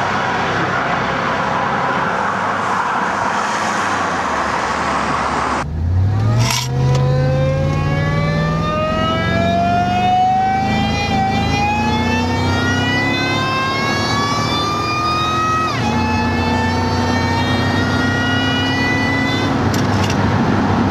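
Ford Lightning pickup accelerating hard: after about six seconds of a steady rushing noise, the engine note climbs steadily, drops sharply at a gear change about sixteen seconds in, and starts climbing again.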